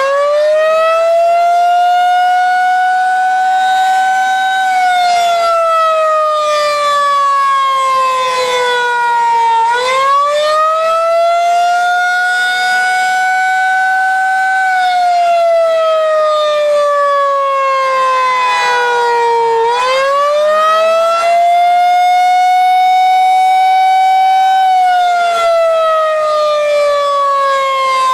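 Federal Signal 2001 electromechanical tornado siren sounding the wail signal: one loud pitched tone that rises for about five seconds, then slowly falls, then rises again, repeating almost three times.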